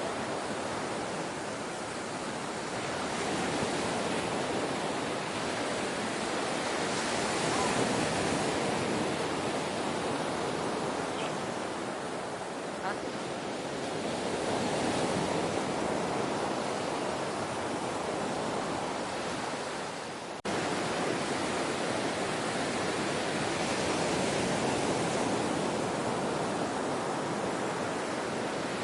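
Ocean surf washing in continuously, a steady hiss that slowly swells and eases every seven or eight seconds. About twenty seconds in the sound briefly dips and then cuts back in abruptly.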